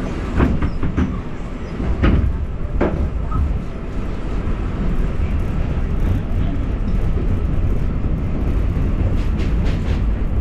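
7 line subway train pulling out of the station, heard from inside the car: a few sharp clacks in the first three seconds, then a steady rumble of wheels on the elevated track as it gets under way.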